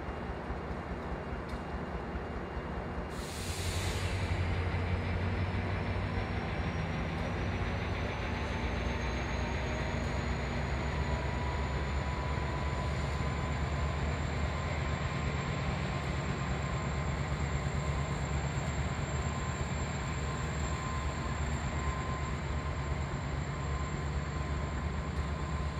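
A train's locomotive running with a steady low hum. About three seconds in, a short hiss, then the hum grows louder and a whine rises in pitch for about ten seconds before holding steady.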